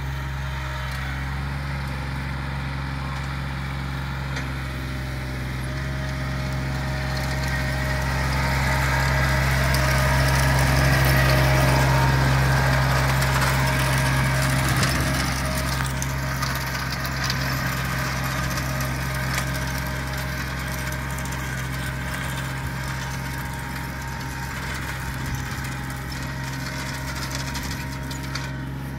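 John Deere 2320 compact tractor's three-cylinder diesel engine running steadily as it drives across the lawn towing a plug aerator. It grows louder as the tractor comes close about ten seconds in, then fades as it moves away.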